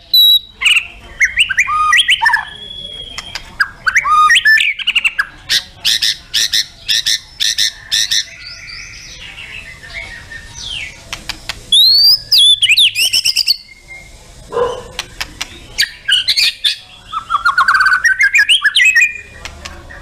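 White-rumped shama (murai batu) singing a varied song: whistled phrases and glides broken up by fast runs of rapid, repeated sharp notes, with short pauses between phrases.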